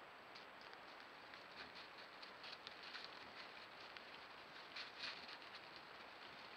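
Faint, irregular rustling and crackling of wild boar moving through grass and undergrowth, over the trail camera's steady hiss.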